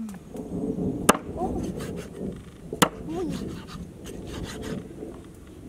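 A cleaver cutting a skinned snake on a wooden chopping board: two sharp knocks about a second and three seconds in, with scraping and rubbing of flesh and skin on the wood between them.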